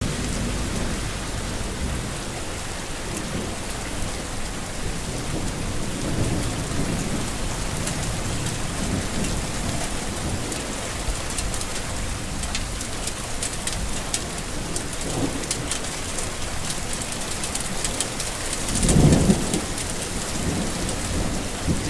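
Steady tropical rain falling, with fine drop ticks, and low rumbles of thunder swelling and fading several times, the loudest near the end.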